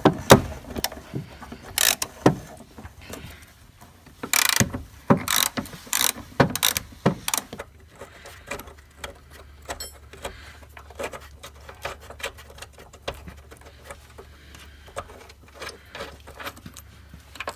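Hand tools working on the Honda Civic's shift linkage: a run of sharp metallic clicks and knocks, densest and loudest in the first half, then fainter scattered clicks.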